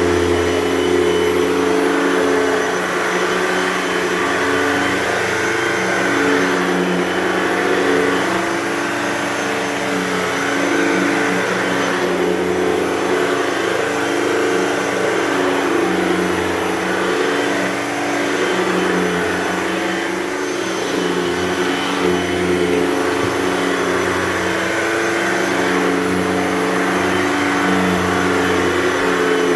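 Hoover Total Home Pet upright vacuum running steadily over carpet, its motor pitch dipping and rising a little every second or two as it is pushed back and forth.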